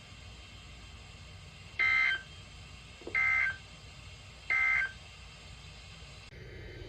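Emergency Alert System end-of-message signal: three short bursts of SAME digital data tones, about a second and a half apart, closing a broadcast severe thunderstorm warning. A low steady hum comes in near the end.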